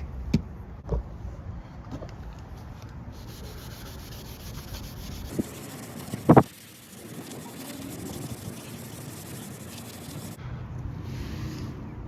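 Sanding a plastic headlight lens: a steady scraping rub, with a few short knocks, the loudest about six seconds in.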